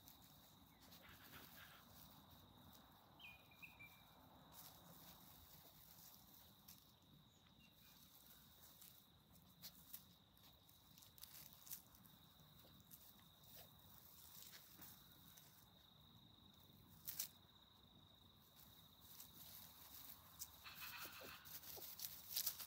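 Faint crackle and rustle of dry leaves and grass as toy poodle puppies pad and scamper through them, a few sharper crunches, loudest near the end. A steady faint high-pitched tone runs underneath.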